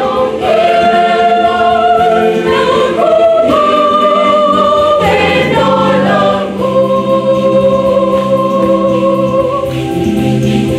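Choir singing a Swahili Catholic song in harmony, moving between long held chords.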